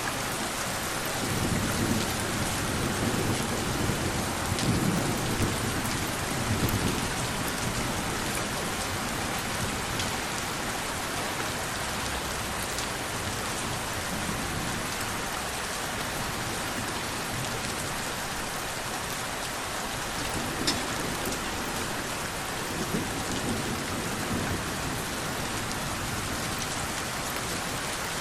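Steady rain hiss, with low rumbles of thunder for the first several seconds and again shortly before the end.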